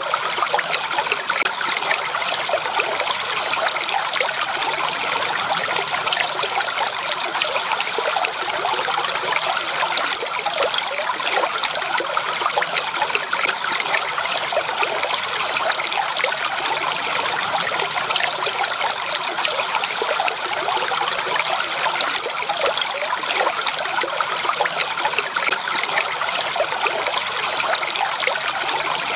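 Stream water trickling and babbling steadily over stones, a continuous splashy flow with no change.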